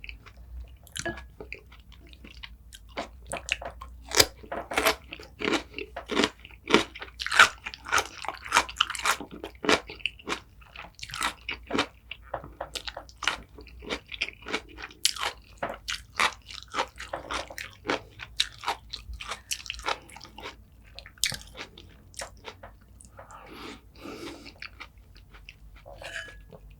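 Close-miked chewing and biting of crunchy kimchi: a fast run of wet crunches, densest through the middle and thinning out near the end.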